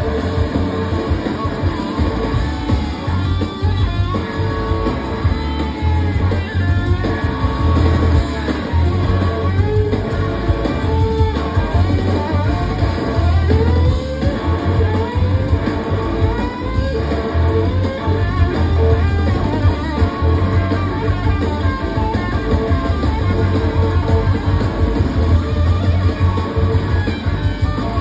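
Live electric slide guitar solo on a red Gibson SG through amplifiers, its notes gliding and bending between pitches, over the band's drums and a low rhythmic pulse.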